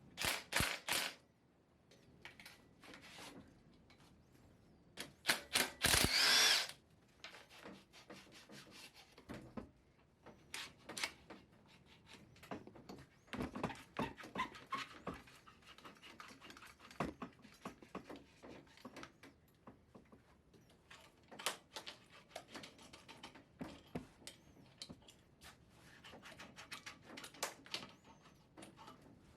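A power drill runs in two short bursts, one about a second long at the start and a longer one around six seconds in, with a whine in the second. After that come scattered clicks and knocks of tools being handled.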